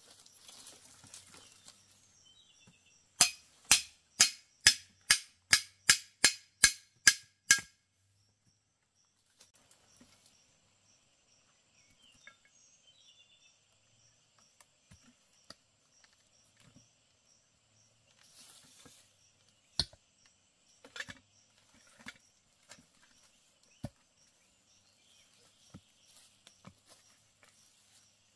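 About ten sharp, evenly spaced knocks a little more than two a second, the loudest sound here, followed later by a few scattered clicks and knocks, with insects chirring steadily in the background.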